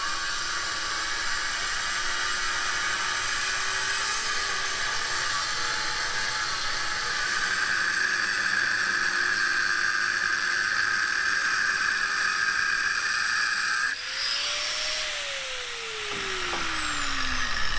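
Corded angle grinder cutting into the rusted steel frame of a Ford Model AA truck, a steady whine as the wheel bites the metal. About 14 seconds in it lets off and the wheel winds down, its pitch falling steadily.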